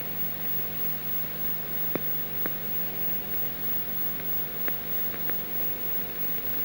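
Steady hiss and low hum of an old film soundtrack, with a handful of faint clicks and pops scattered through it.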